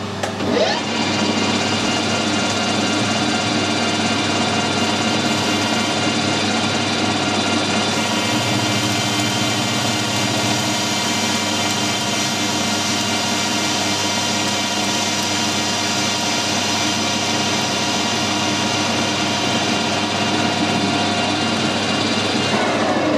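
Metal lathe spinning up to a higher spindle speed about half a second in, then running steadily with a gear whine while a carbide-insert tool takes a facing cut across the end of a round bar, throwing off a ribbon of swarf. It spins down near the end.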